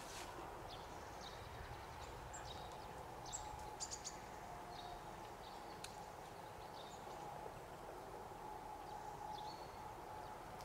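Faint outdoor ambience: a low steady rumble with scattered short bird chirps.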